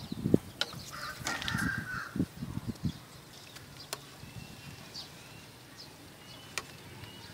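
Birds calling, with a few sharp clicks and low knocks in the first half and faint short chirps later.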